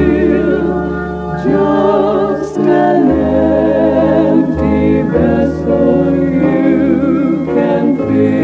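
Music: a choir singing slow, long-held chords with organ accompaniment, the voices wavering slightly in pitch.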